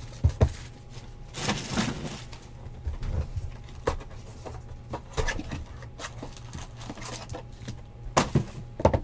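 A cardboard hobby box of trading cards being handled and opened on a tabletop, with scattered taps, knocks and cardboard scrapes. Foil card packs crinkle sharply near the end as they come out of the box.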